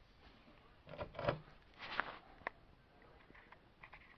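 Faint scraping and knocking of a steel axle shaft and its new U-joint being handled, in a few short strokes about one and two seconds in, with a sharp click about two and a half seconds in.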